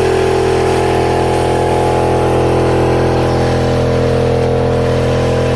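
Campbell Hausfeld 22-gallon oil-less air compressor running steadily, its motor-driven pump building tank pressure.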